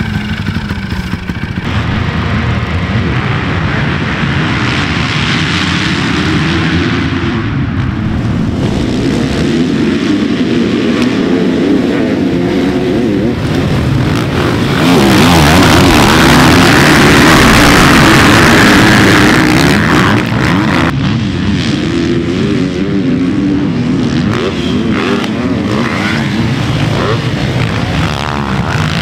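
Motocross dirt bike engines revving up and down on the track, loudest for a few seconds about halfway through.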